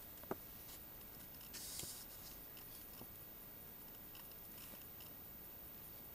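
Paper instruction booklet being handled: a sharp click about a third of a second in, then a short paper rustle a little under two seconds in, followed by a few faint ticks.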